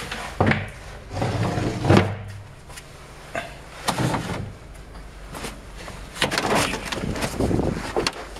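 Irregular knocks and thumps aboard a boat: a few sharp single knocks in the first half, then a busier clatter of knocks near the end.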